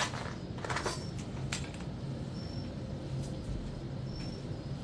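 A few sharp clicks and knocks in the first second and a half, the sound of small objects being handled, then a steady low hum.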